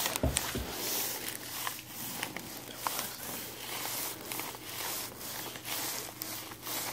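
Rustling and rubbing of clothing and skin during hands-on work on a patient, with scattered light clicks and two low thumps just after the start.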